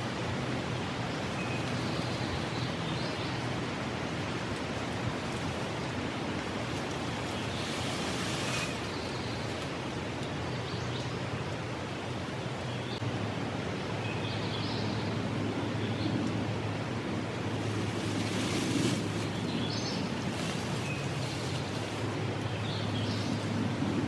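Steady outdoor background hiss in the woods, with a few short, high songbird chirps scattered through it.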